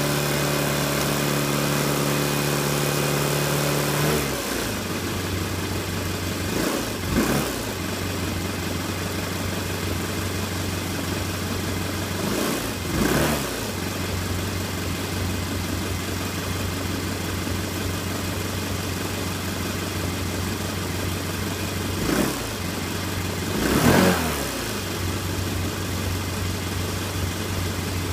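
Honda NHX110 scooter's single-cylinder four-stroke engine running on its newly fitted idle air control valve: the idle drops to a lower, steady speed about four seconds in, and the revs briefly rise and fall several times as the throttle is blipped.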